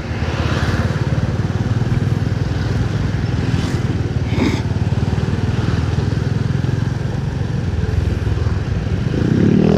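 Engine of a 2003 motorcycle running steadily as it is ridden, with a hiss of wind over the microphone and one brief higher sound about halfway through.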